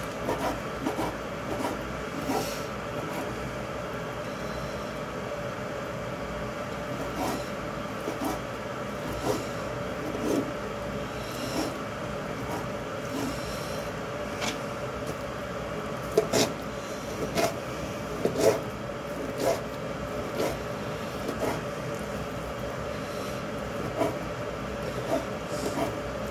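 Kitchen knife cutting raw chicken into small chunks on a plastic chopping board: irregular knocks of the blade against the board, a few louder ones about two-thirds of the way through, over a steady background hum.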